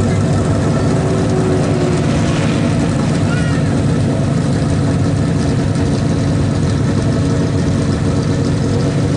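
Stock car V8 engines running steadily at a constant pitch, loud and even throughout.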